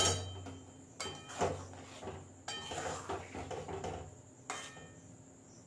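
Metal spatula stirring thick jaggery-syrup mango pickle in a metal kadai. Four sharp ringing clinks of spatula on pan come at the start, about a second in, about two and a half seconds in and about four and a half seconds in, with scraping and stirring in between.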